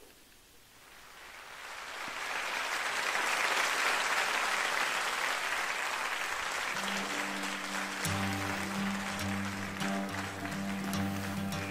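A rushing, applause-like noise swells up and slowly fades, then about seven seconds in backing music starts, with held low chords and a deeper bass note joining a second later.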